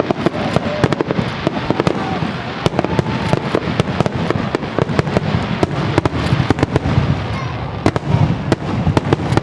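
Fireworks display: a rapid, unbroken barrage of aerial shell bursts, many sharp bangs a second over a continuous rumbling crackle.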